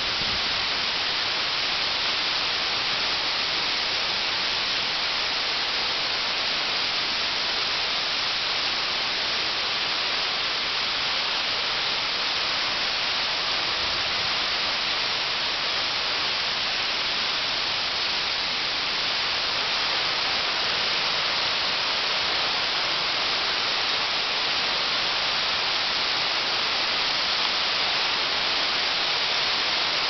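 Waterfall inside a cave pouring down a rock face into a small pool: a steady, even hiss that does not let up.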